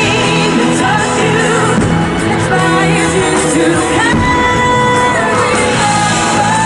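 Pop music with singing, played loud and steady.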